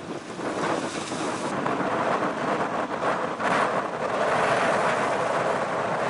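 Wind buffeting the microphone: a steady rushing rumble that grows stronger about three and a half seconds in.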